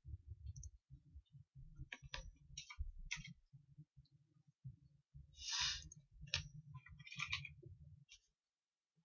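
Faint, scattered clicks and a short rustle over low, irregular thumping.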